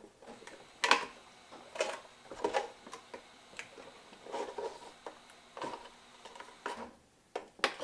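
A knife being pushed and worked through the side of a plastic juice container to make a hole for a perch: irregular crackles and clicks of the plastic giving way.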